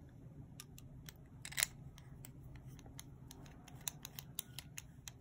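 Small, sharp plastic clicks and ticks from a Platinum 3776 fountain pen being handled and its barrel screwed onto the nib section, with one louder click about a second and a half in and a quick run of lighter ticks near the end.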